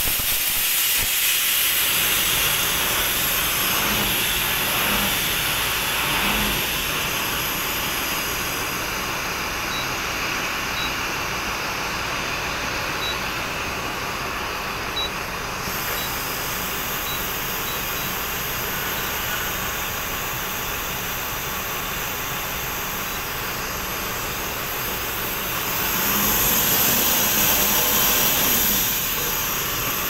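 Steady loud hissing in the cab of an ALS coach. It swells for a few seconds near the end.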